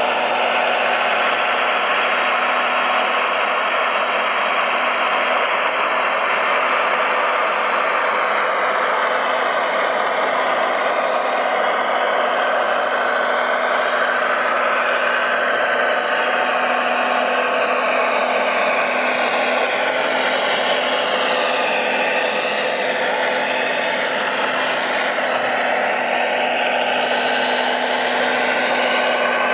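RC model crawler excavator running: a steady mechanical whir with a hiss from its electric drive and hydraulic pump, with a slight wavering in pitch partway through.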